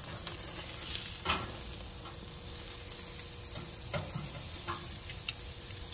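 Pork steaks sizzling over very high grill heat: a steady frying hiss with the fat crackling and popping now and then.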